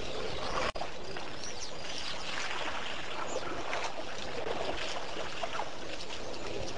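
Water sloshing and trickling at a waterhole as elephants drink and splash, with scattered brief high bird chirps. There is a short break in the sound under a second in.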